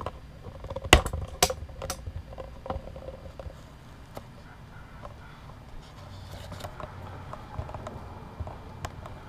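A computer mouse is clicked three times in quick succession about a second in, then there are faint scattered taps and rustling.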